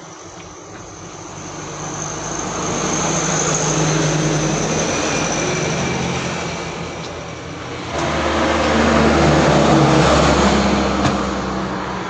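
Motor vehicle traffic: an engine swells and fades, then a louder engine cuts in suddenly about two-thirds of the way through.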